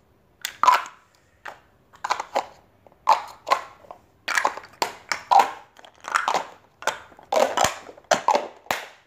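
Wooden and plastic nesting dolls clacking and knocking in quick, irregular succession as they are pulled apart, fitted together and set down on a hard floor.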